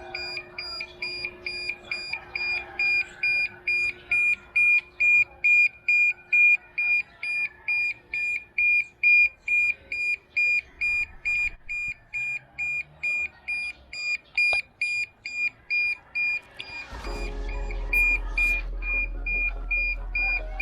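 DJI Mini 2 remote controller beeping on being switched on: a high-pitched beep repeated about twice a second. A low hum comes in near the end.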